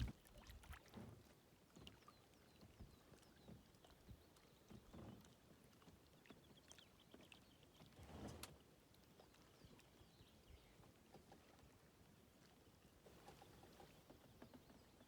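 Faint kayak paddle strokes, soft splashes and swishes in the water every second or two, the strongest about eight seconds in.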